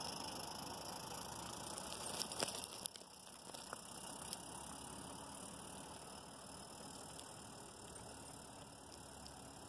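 Regner Konrad live-steam garden-railway locomotive and its log cars rolling past, a soft rattle with a few sharp clicks about two and a half seconds in. The sound then drops away and stays faint as the train moves off.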